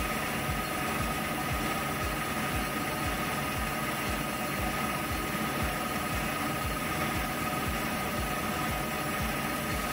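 Warco WM250V bench lathe running at 1200 RPM on power feed, its carbide-tipped tool taking a light 0.2 mm cut in bright mild steel. It makes a steady machine hum with a constant high whine over it.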